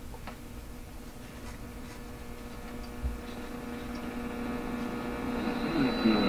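Hallicrafters TW-1000 tube radio coming up just after switch-on: a faint hum and hiss from its speaker grow steadily louder, with a soft thump about three seconds in, and a steady high whistle and rising static coming in near the end.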